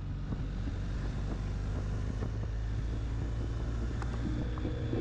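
Steady low drone of a vehicle engine running at an even speed, with faint music coming in near the end.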